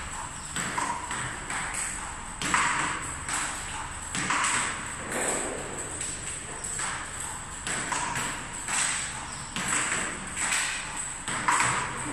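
A table tennis ball hit back and forth in a forehand rally. Sharp clicks of the ball off the paddles and bounces on the table come in a steady rhythm, about one a second.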